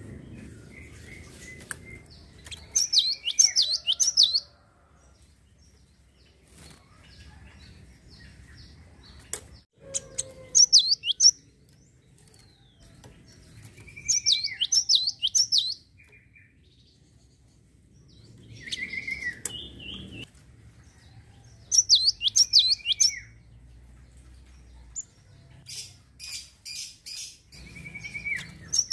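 Java sparrow (gelatik) singing in short repeated bursts, each a falling whistled note followed by a quick run of high chirps, with a few seconds' pause between bursts. Faint clicks come between the phrases.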